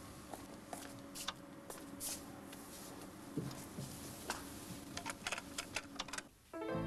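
Scattered soft clicks, taps and rustling as a man climbs into a car's front seat and settles, over a faint steady hum; a cluster of sharper clicks comes in the second half. Music comes in right at the end.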